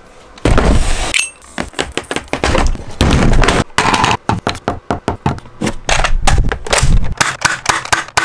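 Toy foam-dart blasters being handled and fired: plastic clicks, snaps and thumps in quick succession, with a few louder bursts of noise lasting under a second each, the first about half a second in.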